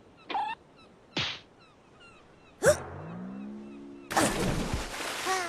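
Cartoon sound effects: a springy boing, a short whoosh, then a sharp hit followed by a rising tone, and about four seconds in a long hissing whoosh.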